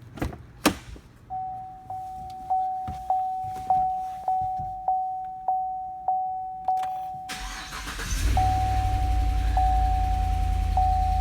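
Two sharp clicks, then a vehicle warning chime dinging about every 0.6 seconds; about seven seconds in the 2016 Cadillac Escalade's 6.2L V8 cranks and catches on a cold start and settles into a steady idle, while the chime carries on at a slower pace. The owner believes this engine has a rod knock.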